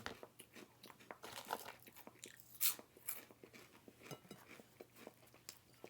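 A person chewing and biting food, with irregular soft crunches and mouth clicks and one louder crunch near the middle.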